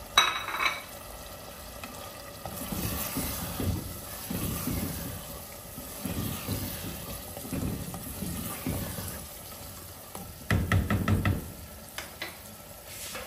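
A wooden spatula stirring and scraping thick beef-and-potato keema in a clay handi, in uneven strokes. A sharp clink at the very start, and a quick run of about six knocks about ten and a half seconds in, followed by a couple of single clicks.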